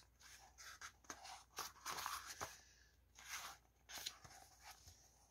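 Faint rustling of paperback book pages being turned and handled, a series of short, irregular paper rustles.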